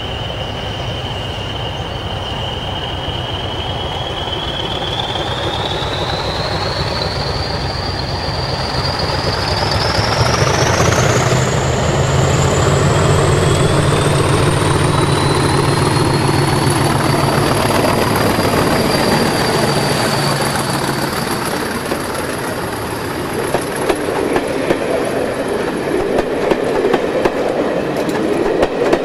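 English Electric Class 40 diesel locomotive working a train under power, its turbocharger whistle rising steadily in pitch over the first half as the 16-cylinder engine's deep rumble grows louder and passes close by. Near the end the coaches rattle past, their wheels clicking over the rail joints.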